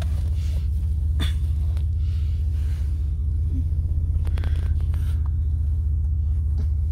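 Low, steady rumble of an idling vehicle engine, with a sharp click about a second in.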